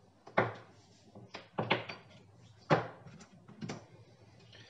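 Four short knocks and clatters of hand tools and a small metal part being set down on a plastic cutting board on a wooden bench: wire strippers and a motorcycle low-fuel sensor unit.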